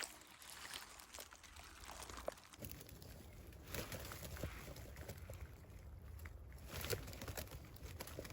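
Rustling and crackling of dry vegetation being pushed through, with scattered small snaps and clicks.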